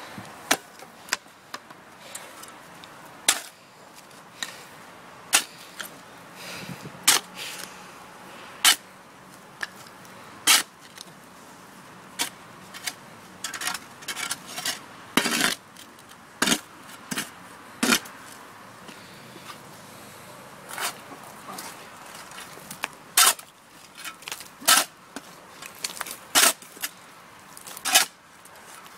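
Spade digging into wet, stony soil: sharp chops of the metal blade every second or two, at an uneven pace, with a few short scrapes as soil is loosened and lifted.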